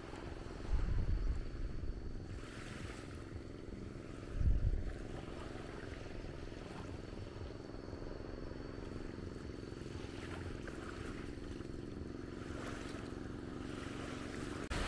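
Steady low motor drone, with wind buffeting the microphone twice, about one second and four and a half seconds in.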